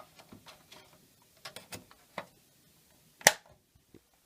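Light clicks and taps from handling a small plastic satellite TV box and its card, then one sharp snap about three seconds in.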